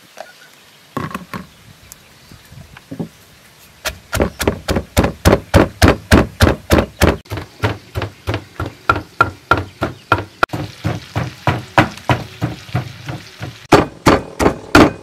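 Wooden pestle pounding garlic and red chilies in a wooden mortar. A few scattered knocks come first. From about four seconds in the pounding runs steady at roughly three strikes a second, and a few harder strikes come near the end.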